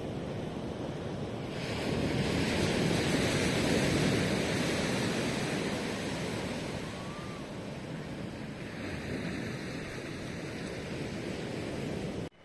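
Ocean surf washing on the shore: a wave breaks about a second and a half in, swells for a couple of seconds and fades, and a smaller wash follows later. The sound cuts off suddenly just before the end.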